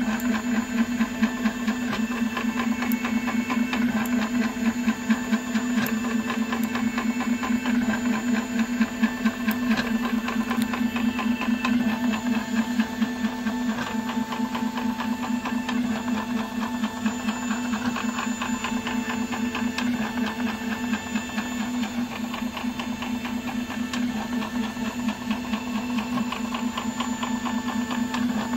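3D printer's stepper motors running through a print: a steady low buzz that pulses rapidly as the print head moves, with higher whining tones that keep changing pitch.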